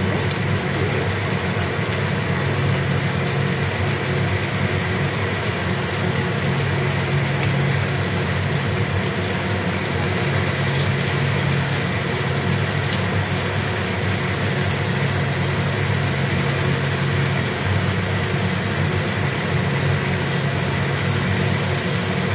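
Steady low motor hum with an even hiss over it.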